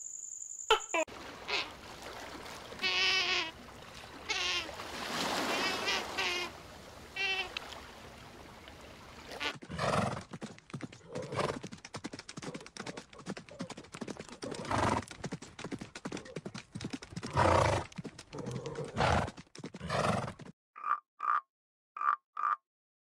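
Short warbling chirps first, then horses neighing and snorting over a run of quick clicks, with louder calls several times. Near the end a frog croaks in short, evenly spaced pulses, a little over two a second.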